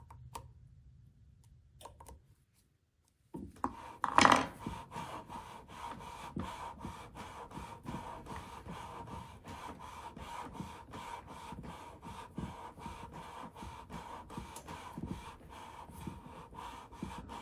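Steel lapping bar worked back and forth inside a pair of scope rings with abrasive lapping compound, grinding the ring surfaces into alignment: a gritty scraping in quick, even strokes. It starts a few seconds in with a sharp knock.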